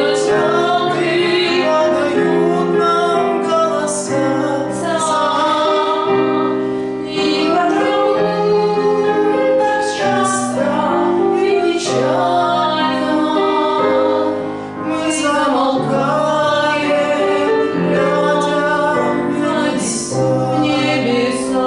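A solo singer performing a slow, lyrical song over instrumental accompaniment, with long held notes sung with vibrato.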